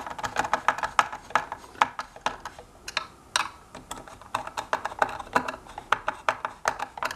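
Rapid, irregular plastic clicks and taps as hands handle wire connectors and parts inside an open hoverboard shell, several a second.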